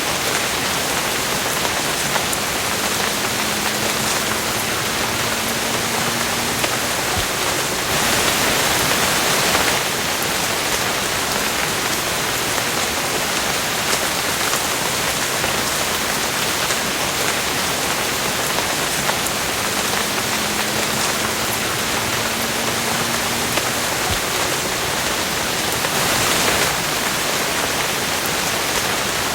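Steady rain falling, an even, continuous hiss, with two brief louder swells, one about a third of the way in and one near the end.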